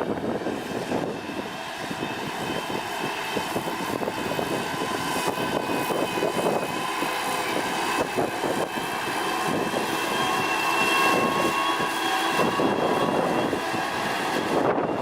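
Heavy road-construction machine's diesel engine running steadily, a dense rumble with a thin steady whine above it, growing somewhat louder over the first half.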